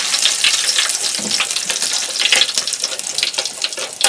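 Curry leaves and crushed garlic frying in hot oil in a perforated ladle: a dense sizzle full of fine crackles that slowly dies down.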